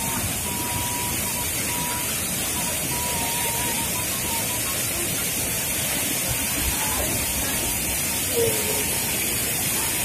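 Waterfall and shallow stream water rushing steadily: a continuous, even wash of falling and flowing water.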